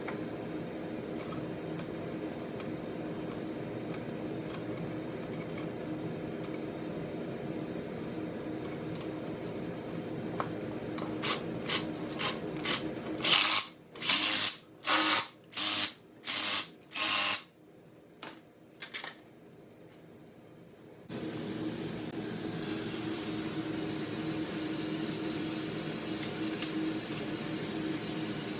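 Steady workshop hum, then a power tool run in a string of short bursts about halfway through, roughly one burst a second, five loud ones in a row, followed by a couple of quick blips before the hum returns.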